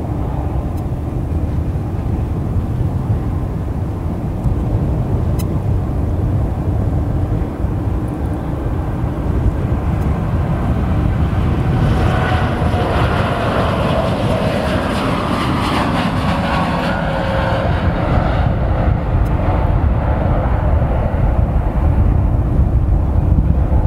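Boeing 787-8 airliner's jet engines at takeoff power through the takeoff roll, lift-off and climb-out: a steady heavy rumble that grows a little louder as the jet goes by, with a whine that falls in pitch from about twelve to seventeen seconds in.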